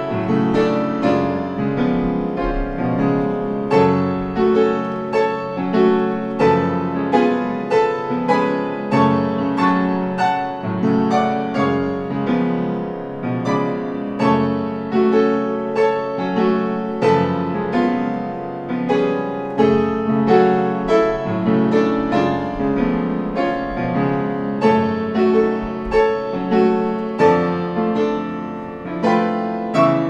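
Blüthner piano played with both hands: chords struck over and over in a steady, even pulse, the notes ringing on between strokes.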